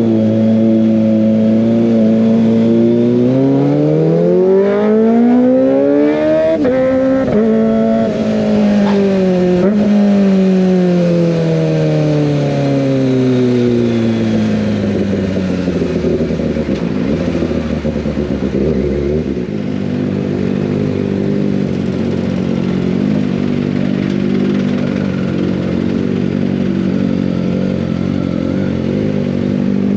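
Kawasaki ZX25R's inline-four engine through an Over Racing GP-RS full-system exhaust, ridden: the engine note climbs for a few seconds, breaks at gear changes about seven and nine seconds in, then falls steadily as the bike slows, settling into a steady low note by about twenty seconds.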